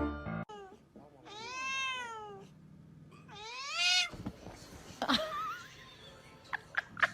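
A cat meowing: two long drawn-out meows, each rising and then falling in pitch, followed by a few short clicks and a brief wavering sound.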